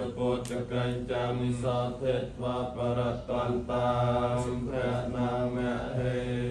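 Theravada Buddhist monks chanting Pali paritta blessing verses together in unison, a rhythmic recitation held on one steady low pitch.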